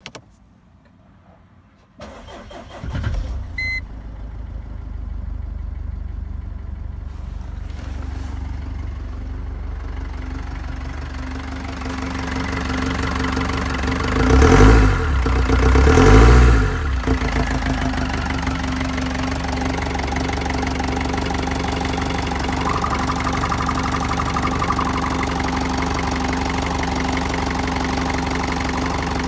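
Mercedes-Benz OM611 2.2-litre four-cylinder common-rail diesel cranked and started about two seconds in, with its coolant gauge still at the bottom of the scale, and a short beep just after it catches. It then idles steadily, is revved twice in quick succession about halfway through, and settles back to idle.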